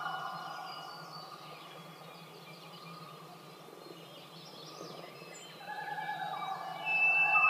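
Field recording of common loons wailing: long, held notes that step and slide in pitch, fading away early and swelling again after about two-thirds of the way through, with the high, thin whistled notes of a white-throated sparrow coming in near the end, played back over speakers.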